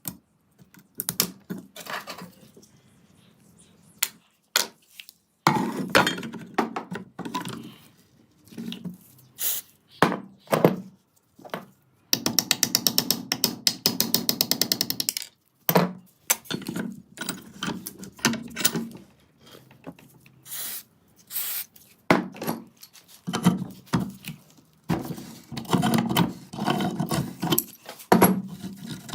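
Hand tools and metal gun parts knocking, clicking and scraping during restoration work. About halfway through there is a fast, even run of ratchet-like clicks lasting roughly three seconds.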